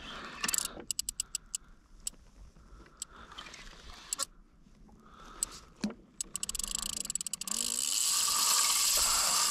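Fishing reel clicking: scattered single clicks, then rapid clicking about six seconds in that speeds up and runs into a continuous ratcheting buzz.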